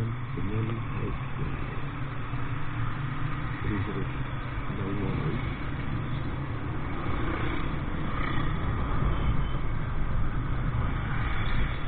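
Motorcycle engine running while riding along a street, with steady wind and road noise on the microphone. It gets a little louder in the second half.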